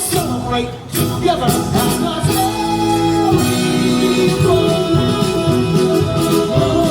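Live stage-show music with singing: held sung notes over instrumental accompaniment and percussion.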